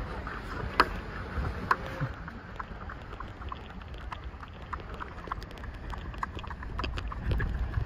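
Wind rumbling on the microphone outdoors on a sandy beach, with scattered light ticks and a few sharper clicks, loudest in the first two seconds; the rumble swells near the end.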